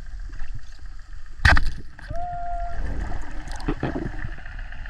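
Muffled underwater water noise with a low rumble, broken by one sharp, loud snap about a second and a half in, followed by a brief steady tone.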